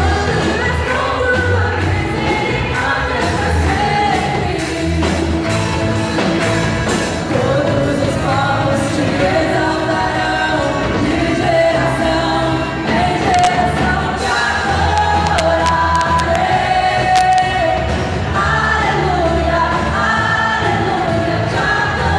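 A church worship band playing a gospel song, with several voices singing over a steady bass and drums.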